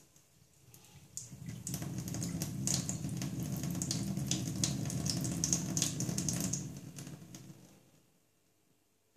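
Water running from a wall-mounted single-lever mixer tap with a newly fitted cartridge: the lever is opened about a second in, the flow runs steadily, then it is shut off and fades out at about seven to eight seconds.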